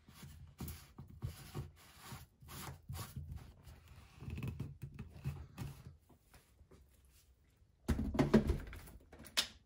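Plastic Ninja blender cup and lid being handled: a run of faint scraping rubs as the screw-on lid is twisted tight, then a louder clunk and rumble about eight seconds in as the cup is set onto the blender base.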